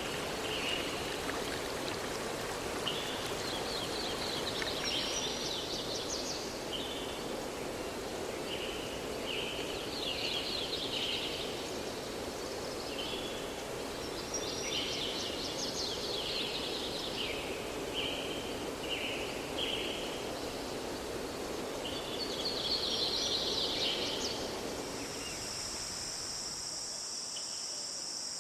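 Forest birds singing short repeated phrases over the steady rush of a stream. Near the end the water sound drops away and a steady high chirring of crickets or similar insects takes over.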